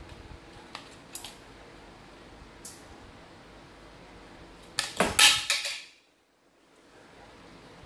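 Hard plastic casing parts of a mini Bluetooth keyboard being handled: a few light clicks, then a quick burst of plastic clatter and knocks about five seconds in.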